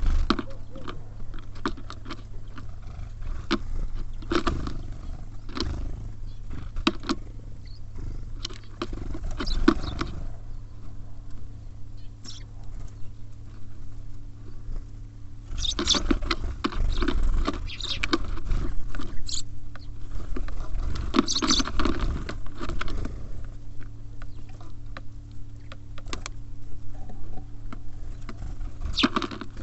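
Small birds feeding at a close-miked seed feeder: rapid pecking taps and scratching on seeds and the feeder, coming in busy clusters, over a steady low hum.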